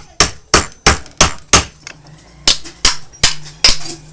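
Rapid hammer blows during a ceiling fan bearing change, about three a second: five strikes, a short pause about two seconds in, then four more.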